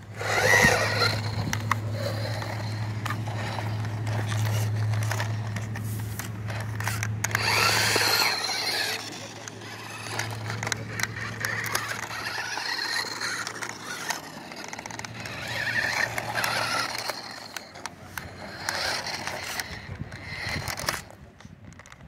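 Radio Shack Sound Bat II remote-control toy car running on dirt, its motor and built-in electronic sound effects going, with a steady low hum that stops about seventeen seconds in.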